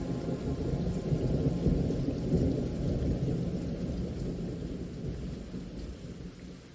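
Long rolling thunder rumble over steady rain. It swells to its loudest two to three seconds in, then fades away toward the end.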